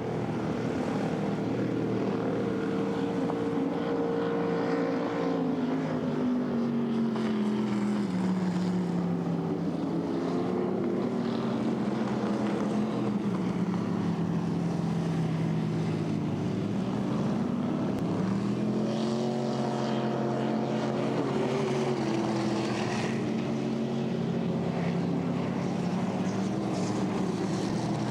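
Racing boat engines running out on the water. The pitch drops about a quarter of the way in, stays low, climbs again past the middle and then falls once more.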